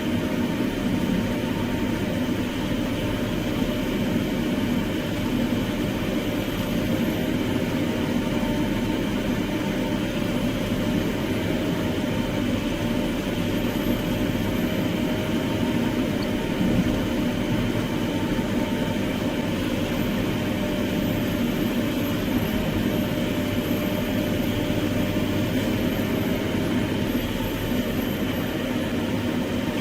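Heavy machinery engine running steadily under continuous load, with a faint high whine that rises and falls every few seconds.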